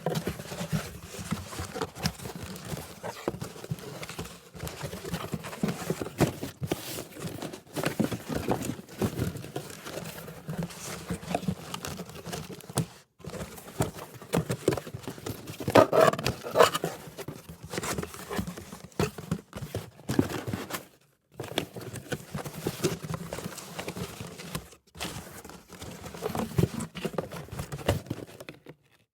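Cardboard box handled, its flaps opened and closed again and again: a close run of rustles, scrapes and soft knocks, with a few short pauses and a louder burst of scraping about sixteen seconds in.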